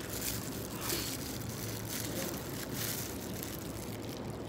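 Soft crinkling of a thin plastic food glove and squishing of flaked grilled milkfish as a hand pulls the fish apart, over a steady low background hum.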